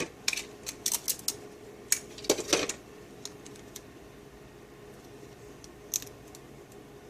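Hands handling adhesive tape and the laptop's LCD panel at the video-cable connector: a quick run of light clicks and crinkles for the first few seconds, then one more click about six seconds in.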